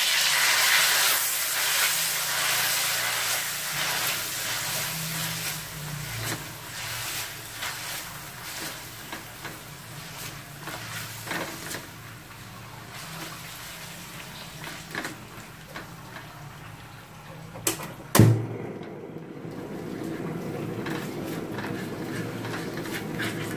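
Aromatics and red chili paste frying in hot oil in a stainless steel wok, sizzling loudest at first and dying down over the first several seconds, with a plastic spatula scraping and tapping against the wok. A single sharp knock about 18 seconds in.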